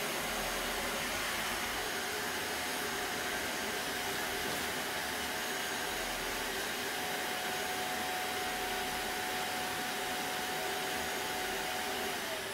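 Vacuum cleaner running steadily with a constant whine; near the end it is switched off and the motor's pitch falls as it spins down.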